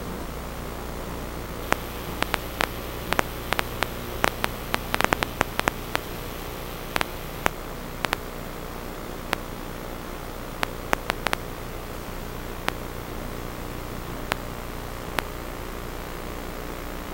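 Steady hiss with a low hum, broken by irregular sharp clicks that come thickly for a few seconds and then thin out.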